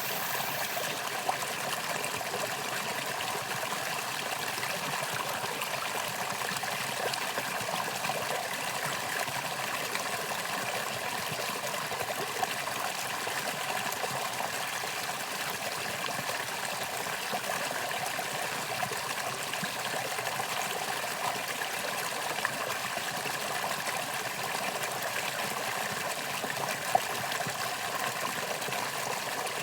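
Valley stream flowing steadily: an even, continuous rush and trickle of running water, with a few brief ticks scattered through it.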